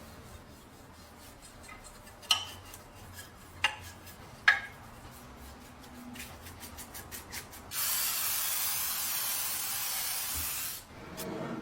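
Small metal lock parts clicking and scraping as they are handled, with three sharp clicks. About eight seconds in, an aerosol can sprays in a steady hiss for about three seconds.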